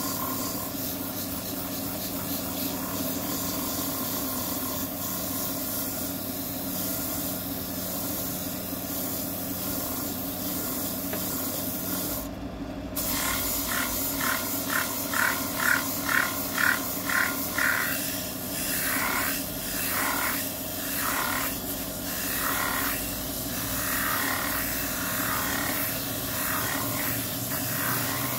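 Wood lathe running, with something rubbing and scraping against the spinning wood. About halfway in, a quick run of even strokes starts, about two to three a second, then slows into longer swells.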